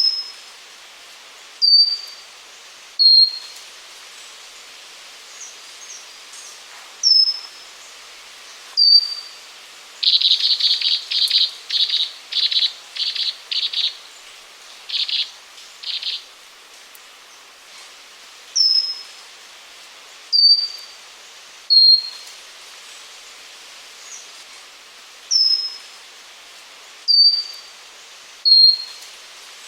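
Pygmy wren-babbler singing: high, thin whistled notes, each dropping quickly in pitch, repeated about every second and a half in runs of two or three. Partway through, a run of about eight harsh, buzzy bursts comes in quick succession, over steady background hiss.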